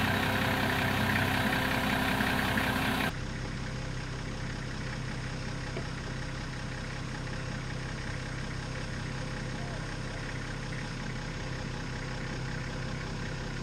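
Nissan forklift's engine running steadily at idle, becoming quieter and duller about three seconds in.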